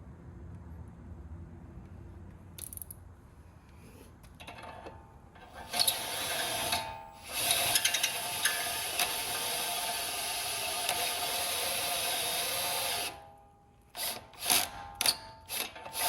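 Power drill boring out a steering knuckle's tie-rod-end hole to 7/8 inch. After a few quiet seconds the drill runs steadily with a brief pause, stops, and is then run in several short bursts before carrying on near the end.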